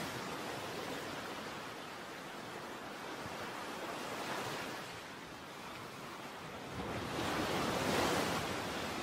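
Sea surf washing over shoreline rocks: a steady rush of water, with a wave swelling louder about seven seconds in and easing off near the end.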